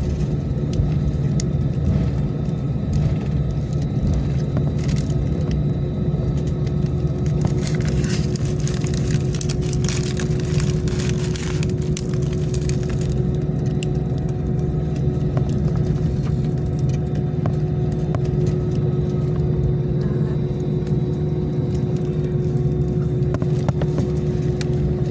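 Airliner cabin noise: the engines' steady drone, a low hum with a constant higher tone over it, unchanging throughout.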